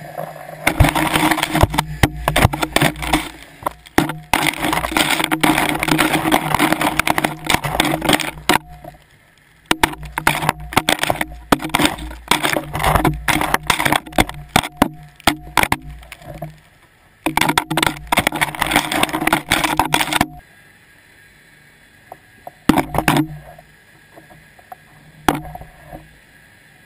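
GoPro camera housing being dragged across the seabed as a dredge, scraping and knocking over sand, shells and stones: long stretches of dense crackling broken by scattered sharp knocks, with quieter gaps between.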